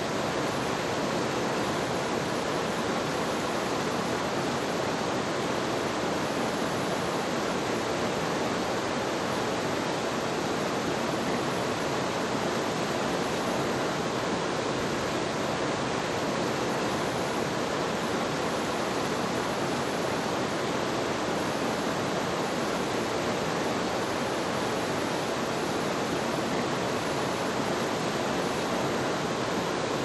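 Tall mountain waterfall plunging down a rock cliff: a steady, unbroken rush of falling water.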